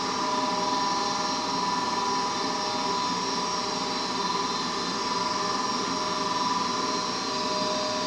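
Goodman gas furnace's draft inducer motor running steadily, a motor whine of several constant tones over a hum, during an ignition attempt; the inducer is working as it should.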